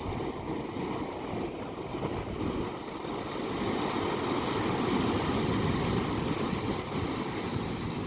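Ocean waves breaking and washing in: a steady surf noise that swells to a louder hiss about halfway through and eases off near the end.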